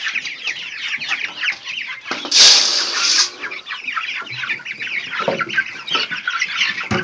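A brood of five-week-old chicks peeping busily, many short high falling chirps overlapping. About two and a half seconds in comes a loud rustling burst lasting under a second.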